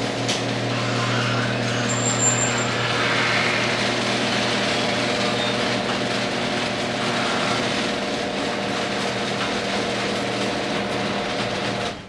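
Electric garage door opener running steadily as it raises an overhead sectional garage door, with a steady motor hum that cuts off as the door reaches full open at the end.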